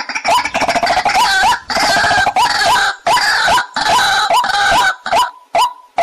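White-breasted waterhens calling: a loud croaking note repeated about two and a half times a second. From near the start to about five seconds in, several birds' harsh croaks overlap into a dense chorus, and the single repeated note is left again near the end.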